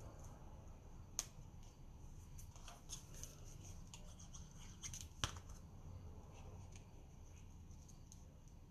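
Faint rustling and light tapping of die-cut paper leaves being handled and pressed onto a card, with a few sharp little clicks, the clearest about a second in and about five seconds in.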